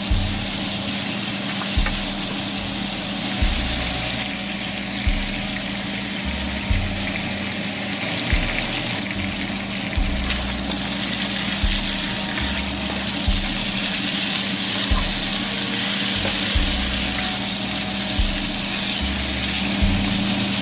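Sliced sausage and onions sizzling as they fry in oil in a pan, under background music with a slow, regular low beat about every one and a half seconds.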